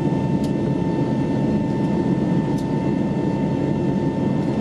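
Steady in-cabin noise of an Airbus A321neo just after takeoff: the deep rumble of its Pratt & Whitney geared turbofan engines and rushing air, with a steady high whine on top.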